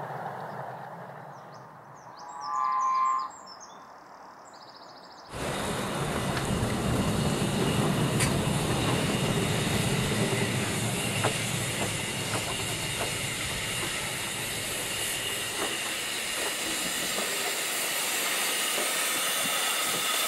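A narrow-gauge steam train running at a distance, with a brief high whistle about two and a half seconds in. From about five seconds in, two small narrow-gauge steam locomotives stand double-headed with a train, venting steam in a loud, steady hiss.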